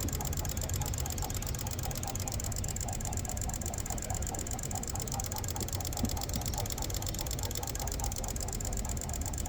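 Honda car engine idling steadily with an even, fast rhythm.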